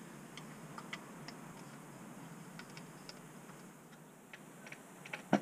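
Light, scattered clicks and taps of tools and metal parts being handled at a motorcycle's open clutch, with one sharper knock near the end.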